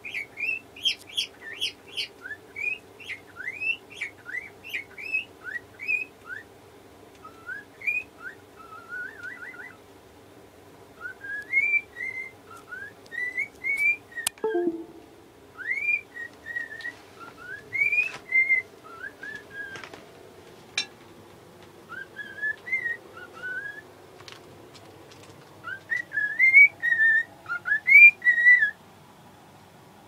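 Cockatiel singing: a long string of short whistled notes, many rising in pitch, some in quick runs, and loudest near the end. A single sharp click sounds about halfway through.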